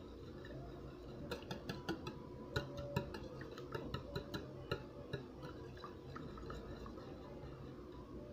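Wire whisk beating raw eggs in a bowl, its wires clicking sharply against the bowl several times a second. The clicking starts about a second in and stops after about four seconds, over a faint steady hum.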